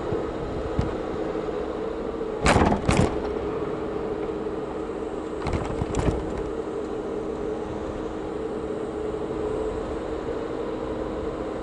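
Steady road and engine hum of a car heard from inside the cabin while driving slowly. Two loud thumps come about two and a half seconds in, half a second apart, and fainter knocks follow around six seconds in, as the wheels ride over bumps or joints in the road.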